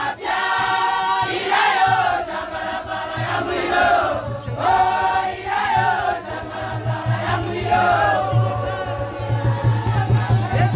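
A choir of several voices singing together, with crowd noise beneath.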